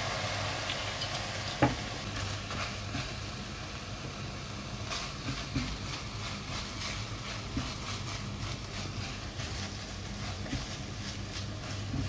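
Vegetarian mince and sliced enoki mushrooms sizzling as they fry in a pot, with many scattered clicks and one sharper click about a second and a half in. A steady low hum runs underneath.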